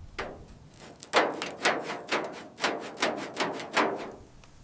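A series of about eight sharp knocks, roughly two a second, each with a brief ringing tail, stopping about four seconds in.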